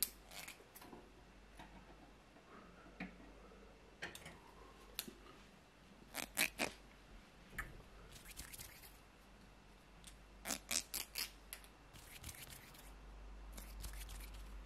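Scissors snipping in short runs of quick sharp snips, a few at a time, with quiet pauses between the runs.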